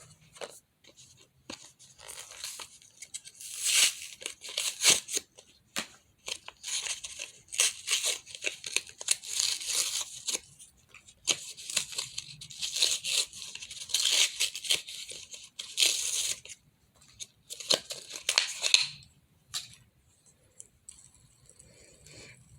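A fidget toy being worked by hand, making repeated scratchy, hissy bursts a second or two long with small clicks between them.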